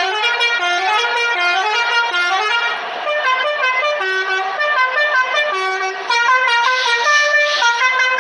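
Bus telolet horn, a multi-tone air horn, playing a quick melody of short stepped notes.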